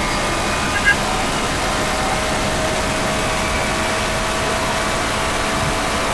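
Honda S2000's F20C four-cylinder engine at a steady part-throttle cruise, picked up by mics at the airbox inlet and tailpipe, with wind and road noise over a faint engine tone that rises slowly. A brief high chirp about a second in.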